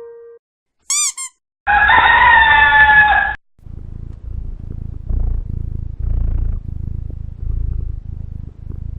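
Stock sound effects in sequence: two short high chirps, then a rooster crowing once with a falling end, then a cat purring in low, even pulses.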